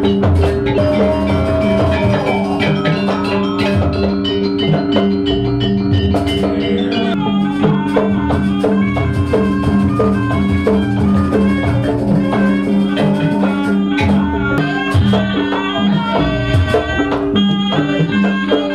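Jaranan Buto gamelan accompaniment: driving hand-drum strokes and struck metal percussion over steady sustained tones, with a melody line above.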